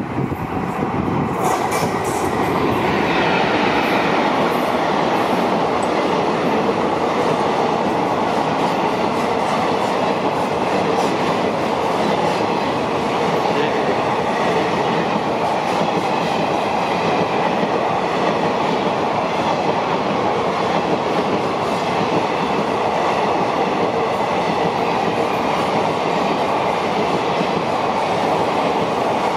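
Express passenger train hauled by a WAP-4 electric locomotive passing close by at speed. The noise builds over the first few seconds as the train draws level, then holds as a loud, steady rush and clatter of the coaches' wheels on the track.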